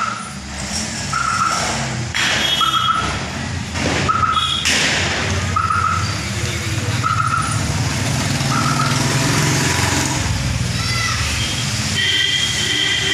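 A short high beep repeating about every three-quarters of a second over a steady low rumble, with a couple of sharp bangs. The beeping stops about two-thirds of the way through, and a held whistle-like tone comes near the end.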